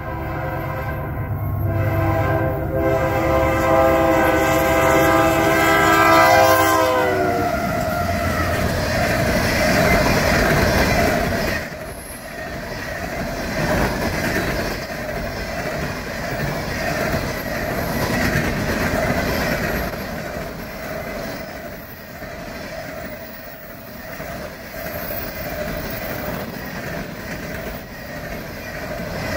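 Union Pacific freight locomotive sounding its multi-note air horn for the grade crossing, with two short breaks, then dropping in pitch as it passes about seven seconds in. After that, the steady rumble and clickety-clack of open-top coal cars rolling past on the rails.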